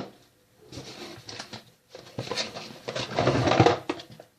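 Rustling and handling of the pieces of a Play-Doh dentist playset as they are taken out and shown, in three irregular noisy stretches.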